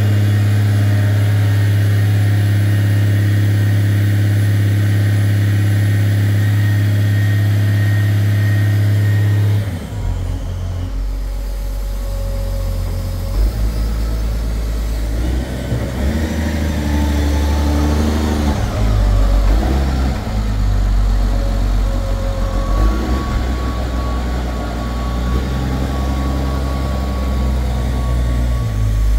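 Atlas Copco underground jumbo drill rig running after its repair: a steady, even engine hum that about ten seconds in suddenly drops to a lower, more uneven running note.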